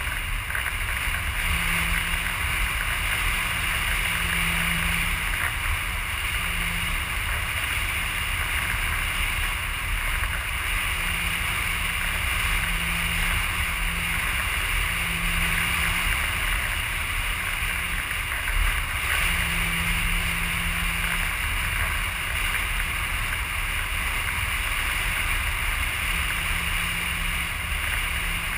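Steady wind rush over the onboard camera's microphone of a Dynam Hawk Sky RC plane gliding without motor power, with a faint low hum coming and going.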